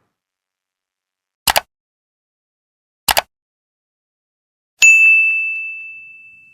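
Two short double clicks a second and a half apart, then a single bright bell-like ding that rings out on one clear note and fades away over about two seconds.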